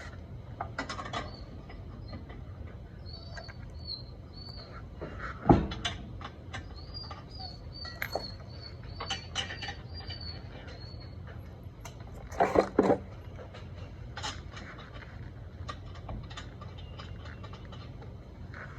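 A small bird chirping repeatedly in quick short notes, over a steady low hum. A few sharp knocks cut through, the loudest about five seconds in and a quick cluster of them about twelve seconds in.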